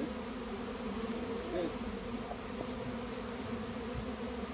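Honeybee swarm buzzing: a steady, dense hum of many bees in flight as the swarm settles onto and into a bait hive, with the pitch of a single nearby bee wavering now and then.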